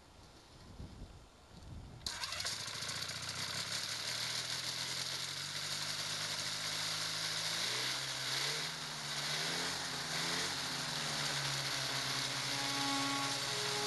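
An engine starts up about two seconds in and keeps running, its pitch rising and falling a few times midway.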